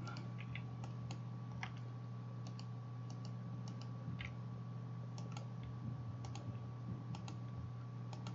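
Light, irregular computer mouse and keyboard clicks, a dozen or so scattered through, over a steady low electrical hum.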